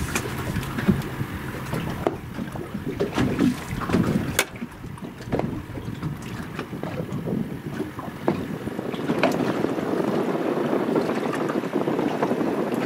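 Wind buffeting the microphone on an open boat, with water sloshing against the hull and a few sharp clicks and knocks scattered through.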